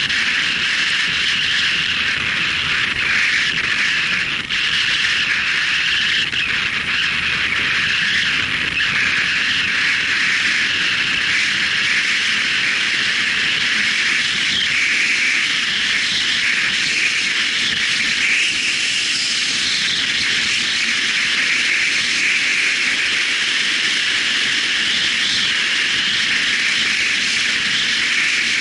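Steady rushing wind and riding noise of a motorcycle on the move, heard through a bike-mounted action camera's microphone.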